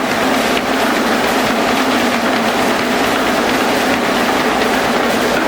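Glass-crushing and grinding machinery running: a loud, steady clattering rattle with a constant hum underneath.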